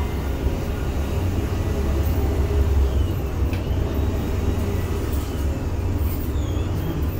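Steady low mechanical rumble of a container crane at work, with a couple of faint short squeals.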